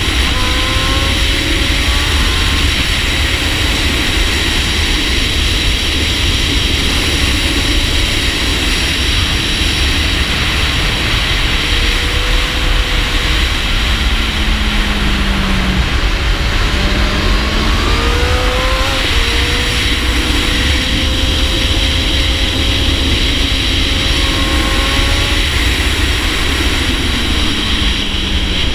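Honda CBR1000RR Fireblade SP's inline-four engine at track speed, heard through heavy wind rush on a shoulder-mounted camera. The engine's pitch climbs and drops with throttle and gear changes, falling and rising again about halfway through.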